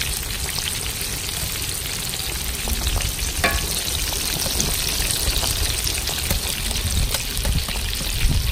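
Battered enoki mushrooms deep-frying in a pan of hot fat: a steady sizzle with dense, fine crackling.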